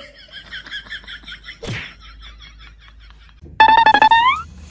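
A duckling peeping in quick high calls, about five a second, with a thump about one and a half seconds in. Near the end, a cat lets out a loud drawn-out yowl that rises in pitch as it ends: a protest at its tail being pulled.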